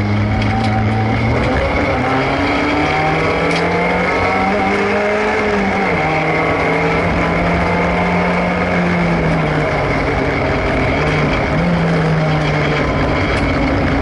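Competition car's engine heard from inside the cabin, driven hard through a slalom: its pitch climbs, holds and drops in steps several times as the driver accelerates, lifts and changes gear between the cones.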